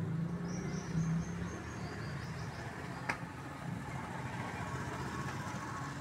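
Tabby cat crunching dry kibble from a bowl, over a steady low hum, with one sharp click a little after halfway.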